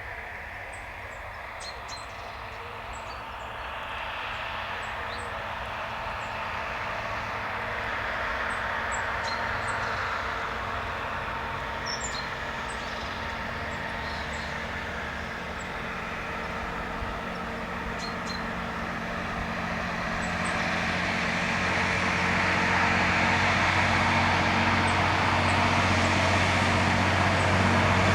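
Mack NO WWII gun tractor's six-cylinder petrol engine running as the truck tows a Long Tom field gun. It grows steadily louder as it comes closer and is loudest near the end.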